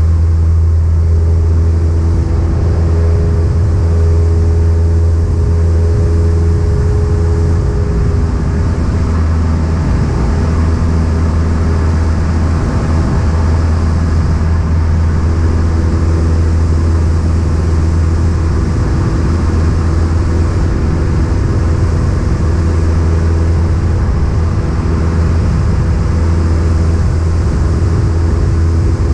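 Cessna 172's piston engine and propeller running with a loud, steady drone, with a few higher tones wavering slightly about a third of the way in.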